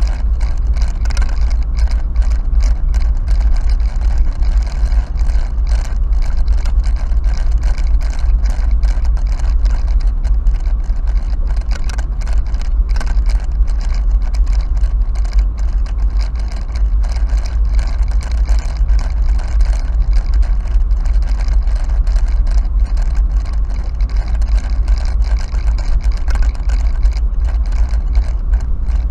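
Car driving along a street, heard from inside the cabin: a steady low engine and road rumble with constant rapid rattling clicks over it.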